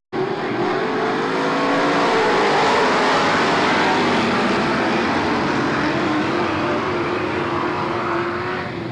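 A pack of dirt-track stock cars racing past, their engines running loud and continuous, with their pitch wavering up and down as the cars go by.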